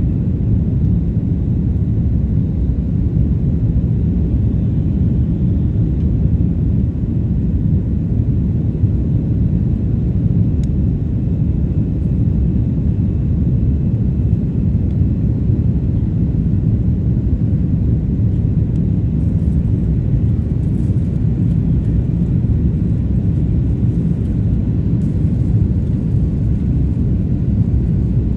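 Airbus A330-300 cabin noise at a window seat during the climb after takeoff: a steady low rumble of the jet engines and rushing air.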